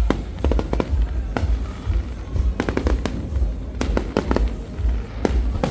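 A fireworks display going off: a rapid, irregular series of sharp bangs and crackles, several clustered together at a time, over a continuous low rumble.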